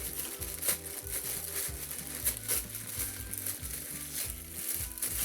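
Plastic packaging crinkling and rustling unevenly as fidget toys are handled, over background music with a steady low bass line.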